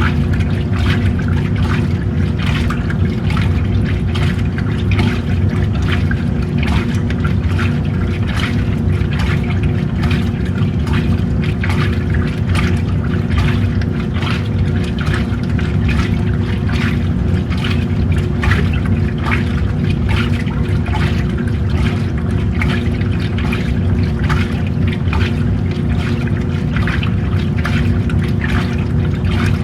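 Old-school washing machine running: a steady motor hum under water churning and splashing in the tub, in short repeated surges.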